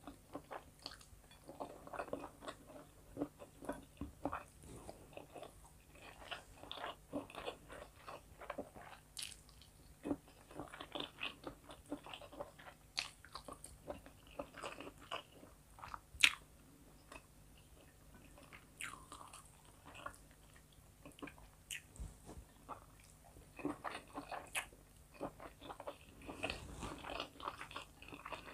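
Close-miked chewing and biting of food: many short, irregular crunches and mouth clicks, with one sharp, loud click about sixteen seconds in.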